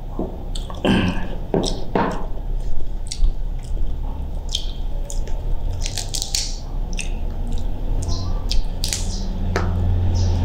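Close-up eating sounds: boiled shellfish shell being cracked and pulled apart by hand, with wet squishing and crackling clicks, mixed with mouth sounds of chewing.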